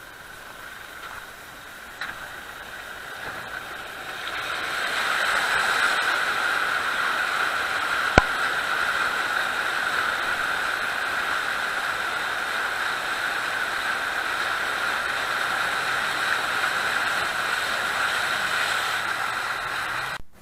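Water rushing and splashing against a ute's wheel and body as it drives through a shallow river causeway. The sound builds about four seconds in and stays loud and steady, with one sharp knock about eight seconds in.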